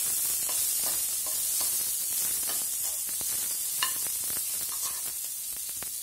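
Shallots, garlic and green chillies sizzling in hot oil in an aluminium pressure pan while a perforated steel ladle stirs and scrapes them around the pan. A sharp, ringing tap comes just before four seconds in.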